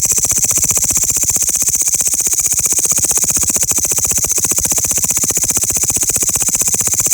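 Loud insect song from singing grasshoppers: a rapid, even pulsing buzz with a high hiss, steady throughout.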